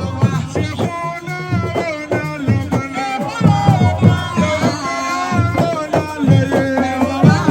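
Music: rapid hand-drum strikes under a wavering, ornamented melodic line.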